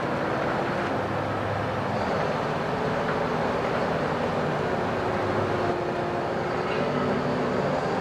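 Liebherr LTM 1750-9.1 mobile crane's diesel engine running steadily at idle, a continuous drone with small shifts in pitch.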